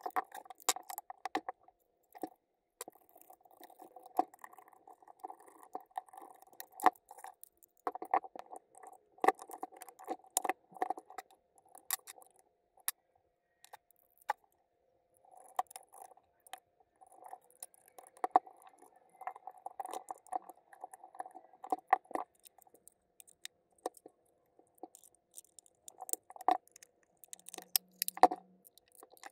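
Irregular clicks, taps and rattles of plastic housing parts, screws and a screwdriver being handled as a cordless random orbital sander is put back together, with a couple of short quieter pauses.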